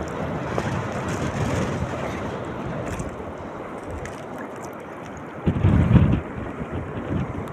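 Steady rushing of wind and sea water. Heavy wind buffeting on the microphone starts about two thirds of the way in.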